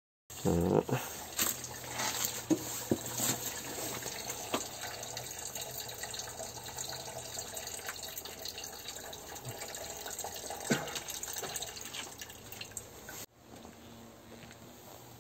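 Liquor being poured from a bottle, a steady splashing trickle with a few sharp knocks of the bottle. It breaks off abruptly near the end.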